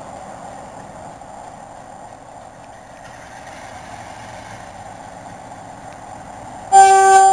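Diesel train engines running steadily as the trains approach, then a train horn sounds loudly near the end, a single held note.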